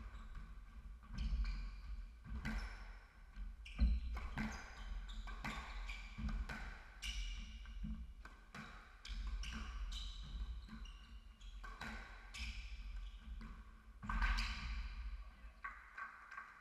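Squash rally: the ball struck by rackets and smacking off the court walls in sharp impacts about once a second, with shoe squeaks on the wooden floor. The hits stop a little before the end as the rally finishes.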